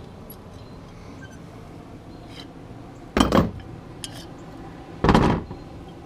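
Metal tools or hardware clattering: two loud metallic clanks about three and five seconds in, with another starting right at the end.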